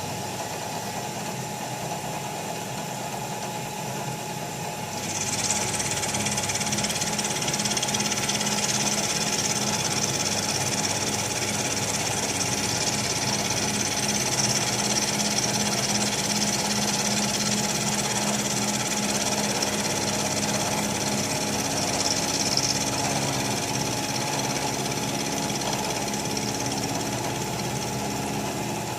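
Bridgeport Series 2 Interact 4 CNC milling machine running steadily, with a high hiss joining about five seconds in that lasts most of the way through.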